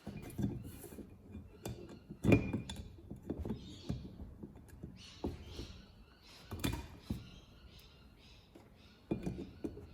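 Needle-nose pliers working the valve stem seals off a Honda CRF450R cylinder head: scattered small clicks and knocks of the tool on the valve stems and head, the loudest about two seconds in and again past halfway.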